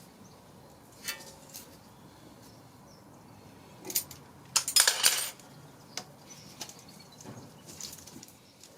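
Metal hand tools clinking on the stabilizer link's stud and nut as a vise-grip holds the stud and the nut is tightened with a socket. A few scattered clinks, with a louder, quick run of clinks and rattles about five seconds in.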